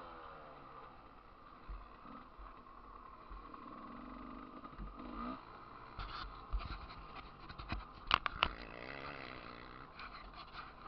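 Motocross bike's engine running, muffled and falling in pitch as the rider eases off, with sharp knocks and rattles from the bike jolting over the rough dirt track, the loudest pair about eight seconds in.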